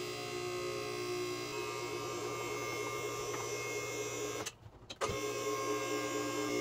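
Electric-hydraulic power unit of a MaxJax two-post lift running, raising a pickup truck. The motor stops abruptly about four and a half seconds in and starts again half a second later with a click.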